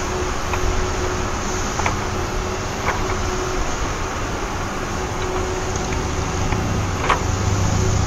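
Steady outdoor background rumble and hiss with a low hum, with a few faint light clicks from plastic toy trucks being handled on sand.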